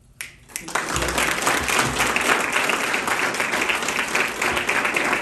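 Audience applause: a few separate claps, then a full round of clapping that builds within the first second and keeps going steadily.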